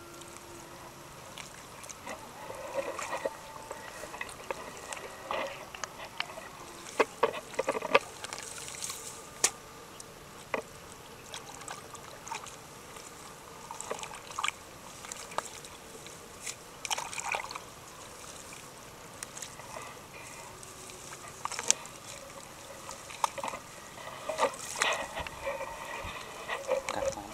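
Shallow water splashing and sloshing on and off, with scattered short knocks and clicks.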